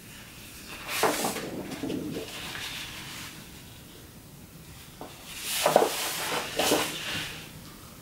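Large paper sheets of an oversized booklet being turned by hand, rustling twice: once about a second in, and again more loudly from about five and a half seconds, with a couple of sharp flaps as the sheet comes over and is laid flat.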